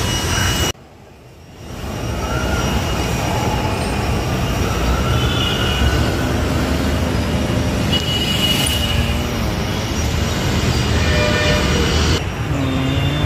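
Busy road traffic: bus and scooter engines running, with short high squealing tones and pitched notes over the rumble. The sound drops away abruptly under a second in and comes back over about a second.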